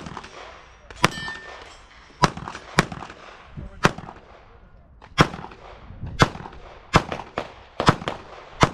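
A string of about nine gunshots fired in quick, uneven succession, roughly half a second to a second and a half apart, each followed by a brief echo: a competitor shooting through a practical-shooting stage at paper targets.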